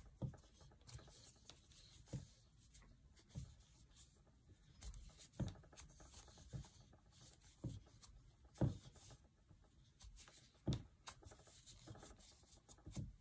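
Crochet hook and thick yarn being worked into single crochet stitches: faint rubbing of the yarn pulling through the loops, with soft irregular ticks about every second or two as the hook catches and draws the yarn.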